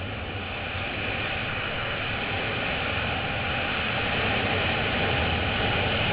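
Freefall wind rushing over a helmet-mounted camera's microphone: a steady, even rush of noise that grows gradually louder.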